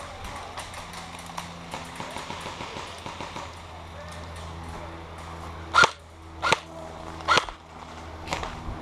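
Airsoft guns firing: three sharp shots a little under a second apart, about two-thirds of the way through, and a fainter one near the end. Footsteps run underneath.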